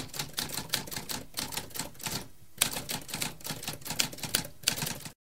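Typewriter typing: a quick, uneven run of key strikes, with a brief pause a little over two seconds in, then cutting off suddenly near the end.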